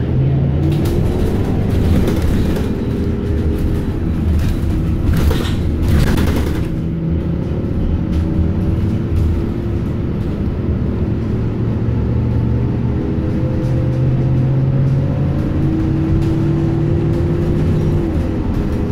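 Transit bus running under way, heard from inside the passenger cabin: a steady low engine and road rumble with a drivetrain whine that slowly rises in pitch, and a short burst of rattly noise about five seconds in.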